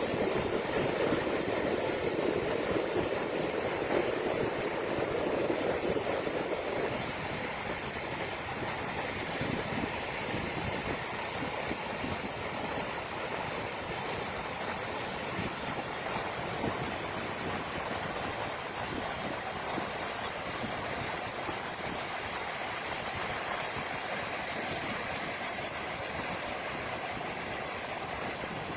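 Ocean surf: a steady wash of breaking waves, louder for about the first seven seconds, then even.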